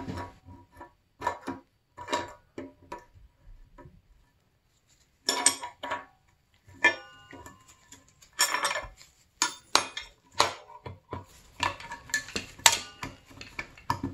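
Steel tools clinking and scraping against the wheel hub as a bearing puller's split collet is worked into the rear wheel bearing. It is a run of short metallic clinks, some ringing briefly, with a pause about four seconds in.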